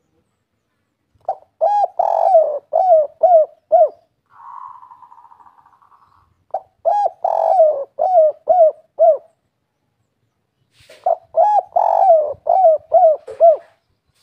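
Spotted dove (derkuku) of the 'kuk 3' song type cooing: three phrases of rapid repeated coos, each ending in a run of short notes. A fainter buzzing sound comes between the first two phrases.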